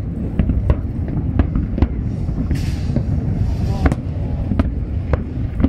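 Aerial fireworks display: shell bursts bang in quick, irregular succession, about two a second, over a continuous low rumble of further explosions. A hissing, crackling stretch comes about halfway through.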